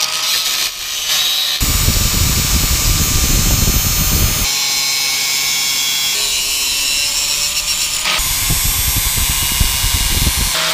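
Electric angle grinder with a cutting wheel running at full speed and grinding the edge of a metal plate to clean up a rough jigsaw cut. Its steady motor whine goes on throughout, and the grinding grows much heavier while the wheel bites hard, from about one and a half to four and a half seconds in and again near the end.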